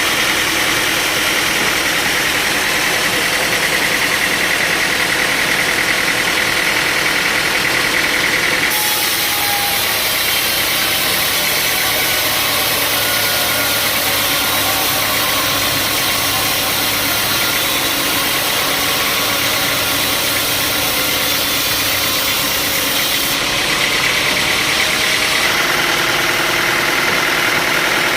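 Sawmill machinery running steadily with a loud engine-like drone. About nine seconds in, the sound abruptly turns brighter and hissier, then switches back near the end.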